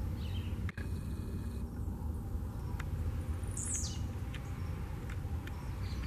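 Blue-black grassquit (tiziu) giving its short buzzy song once about halfway through, a single note sweeping down from very high, with a faint short call near the start, over a steady low rumble.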